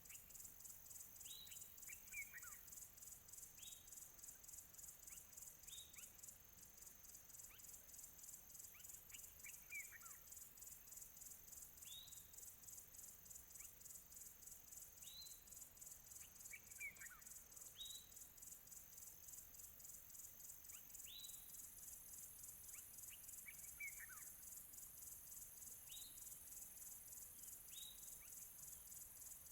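Faint countryside chorus of crickets chirping in a steady, fast-pulsing high trill, with birds calling: short falling notes every two to three seconds and a longer falling call about every seven seconds.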